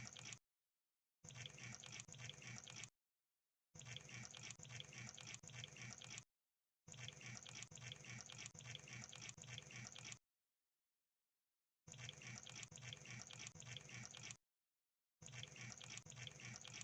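Crab sound effect: runs of fast clicking and crackling, each lasting one to three seconds, broken off by dead silence between them, about five times.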